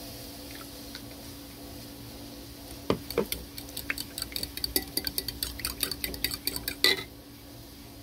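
A metal utensil beating an egg and milk mixture in a bowl, clinking quickly against the bowl's sides several times a second, starting about three seconds in and ending with one louder clink.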